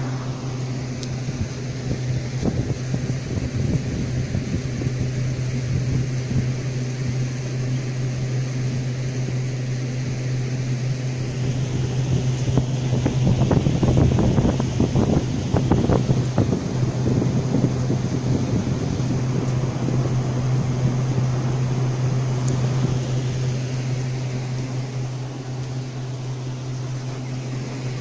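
Evaporative room air cooler's fan running: a steady low hum with rushing air, swelling louder for a few seconds around the middle.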